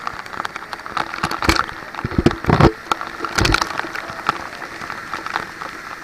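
Waterfall water pouring and splashing onto the camera: a steady rushing hiss with many irregular cracks and knocks of water hitting the camera body, heaviest in a few clusters from about one and a half to three and a half seconds in.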